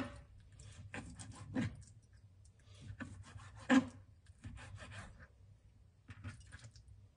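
Kitchen knife slicing raw chicken breast on a plastic cutting board: runs of short scraping strokes of the blade, with three sharper knocks on the board, at the start, about a second and a half in, and just before four seconds.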